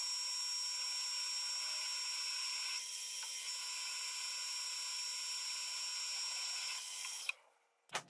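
Fabtec BF 30L Vario drilling-milling machine drilling a metal disc: the spindle motor's steady whine with the hiss of the twist drill cutting. It cuts off abruptly about seven seconds in.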